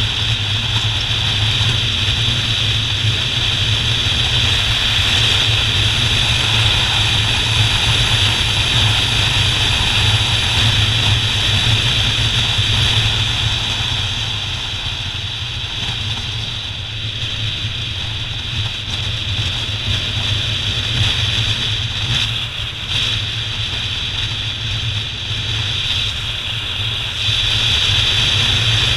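Motorcycle on the move at road speed: steady engine and road noise, easing a little past the middle and picking up again near the end.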